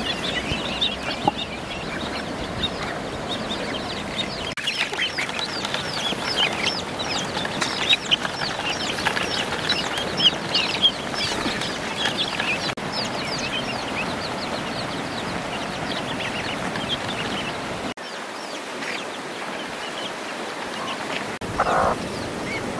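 A crowd of ducklings and chicks peeping, a dense run of short high chirps that is thickest in the middle and thins out later, with a short lower call near the end.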